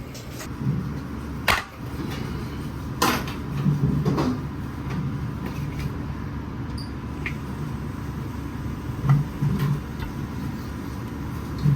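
Kitchen clatter: a few separate knocks and clinks of utensils or cookware over a steady low hum.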